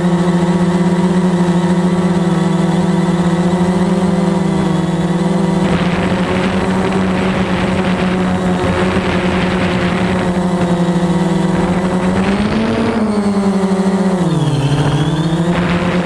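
Quadcopter drone's propellers and motors humming steadily in flight. The pitch rises briefly about 13 seconds in and dips about a second and a half later as the motors change speed. A rushing air noise joins about six seconds in.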